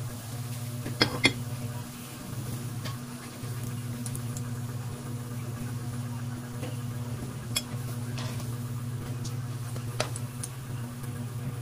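Bread slices deep-frying in oil in an aluminium wok, with a metal spatula clinking against the pan a few times, loudest about a second in, over a steady low hum.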